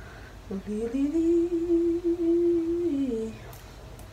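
A woman humming one long note that slides up, holds steady for about two seconds, then slides back down.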